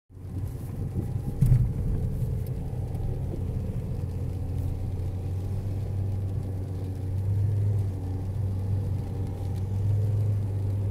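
Duster SUV driving slowly over loose beach sand, heard from inside the cabin: a steady low rumble of engine and tyres, with one thump about one and a half seconds in.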